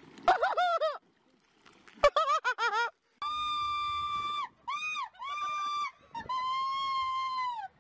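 A woman screaming: a few short, high squeals, then about three seconds in, four long, high-pitched screams, each held for about a second.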